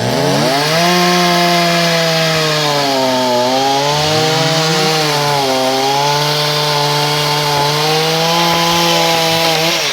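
Two-stroke chainsaw at full throttle cutting through a tree branch, its engine note dipping twice under the load of the cut, about three and a half and five and a half seconds in. It stops suddenly at the end.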